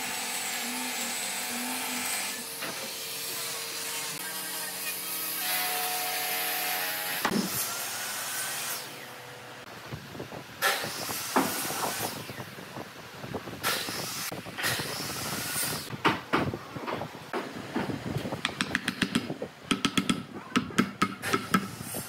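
Handheld power sander running steadily against wood for about seven seconds, a hissing grind. After that come scattered knocks, and near the end a quick run of clicks and taps as wooden pieces are handled.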